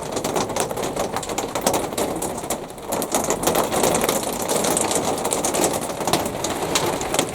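Heavy rain falling, a dense, irregular patter of drops striking a surface.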